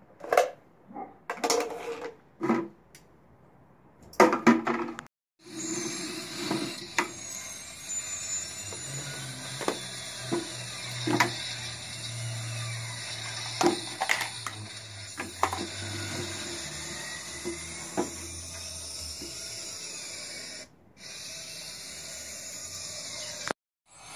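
Small plastic toy trash bins clicking and clattering as they are gripped with metal kitchen tongs and tipped into a plastic toy bin: scattered sharp clicks over a steady hiss.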